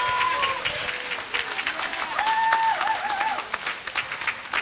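Church congregation applauding with dense, irregular hand clapping, and a few voices calling out over it, one about two seconds in.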